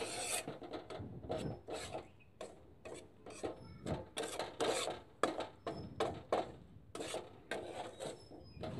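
Metal spatula scraping and stirring coarse mustard oil cake powder around a pan as it dry-roasts. Gritty rasping strokes, about two or three a second, kept up without pause so the powder does not stick and burn.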